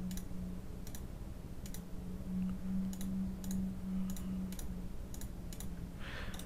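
Computer mouse clicking: a dozen or so short, sharp clicks at irregular spacing while network cables are drawn between devices in the software. A steady low hum runs underneath.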